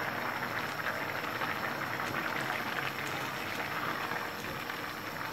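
Rice and chicken pulao boiling in an open steel pot, a dense crackling of many small bubbles bursting as the stock cooks down into the rice.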